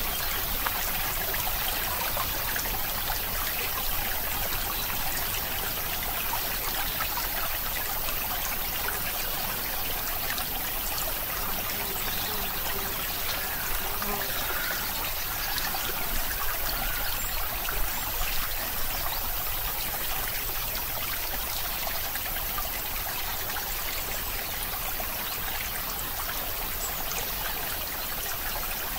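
Steady, even rushing noise like a flowing stream.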